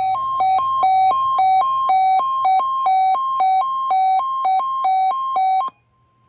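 Electronic two-tone alert for the weather radio's required weekly test: a buzzy beeping that steps quickly back and forth between a lower and a higher pitch, cutting off suddenly near the end.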